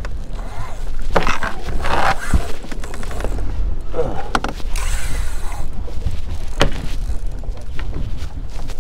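Wind rumbling on the camera microphone on an open boat, with scattered knocks and scrapes as a spinning rod and reel are handled.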